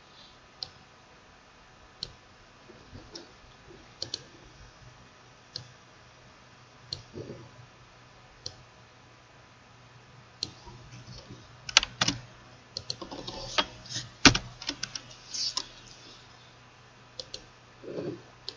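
Typing on a computer keyboard: scattered single keystrokes at first, then a quicker run of keys from a little past halfway through.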